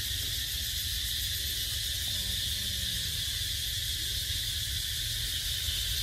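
Steady high-pitched drone of insects, unbroken, with a low rumble underneath.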